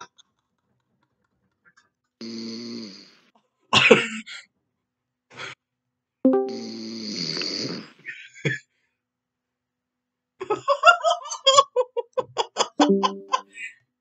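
A person snoring, heard over a voice-chat call: separate rasping snores about a second or two long, with short snorts between them. Near the end comes a fast run of short pulsed sounds.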